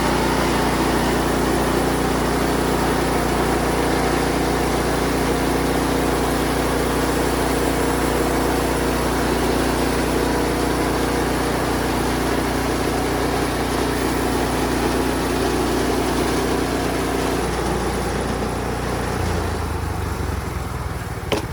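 Engine of a Woodland Mills portable band sawmill running steadily while cutting a cedar log into posts; its note changes near the end.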